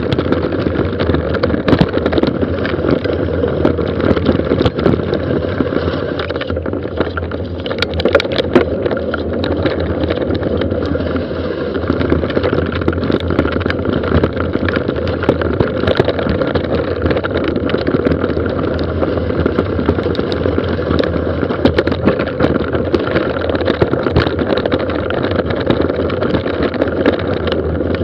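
Mountain bike running fast downhill on a gravel forest road: a steady rush of tyre and wind noise, with the bike rattling and clicking over the stones.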